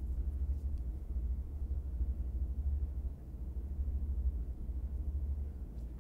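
Steady low rumble of background room noise.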